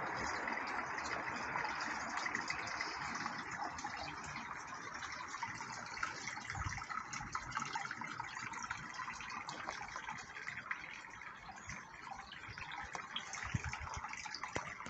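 Steady rush of running or splashing water, slightly louder at the start.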